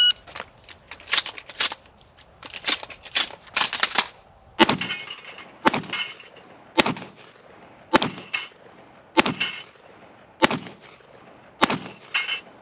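A shot-timer beep, then a few seconds of small clicks as shotgun shells are loaded weak-hand into the gun, then shotgun shots about one a second, several followed by the brief ring of a steel plate from a plate rack being hit.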